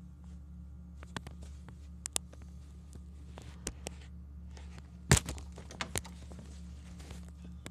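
Handling noise from a phone camera being moved around: scattered clicks and rustles, with one loud knock about five seconds in, over a steady low hum.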